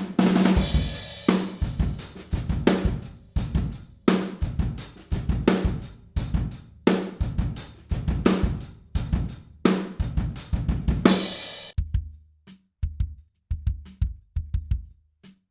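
Recorded acoustic drum kit playing a groove of kick, snare, hi-hat, toms and cymbals, heard through all its microphones (close, overhead and room), full and ringing. About twelve seconds in, everything but the close microphones on kick, snare, hi-hat and toms is cut: the kit suddenly sounds small and dry, with the cymbal and room wash gone.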